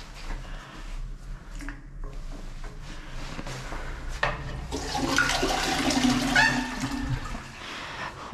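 Toilet flushed about four seconds in: a sudden rush of water into the bowl with gurgling and a steady tone underneath, lasting about three seconds before it dies away.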